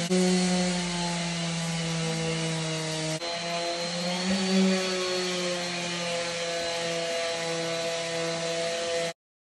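Electric orbital sander running steadily on a planed wooden tabletop: a steady motor hum over the hiss of the pad on the wood, sanding out the little lines left by the planer. The sound breaks briefly about three seconds in and cuts off suddenly near the end.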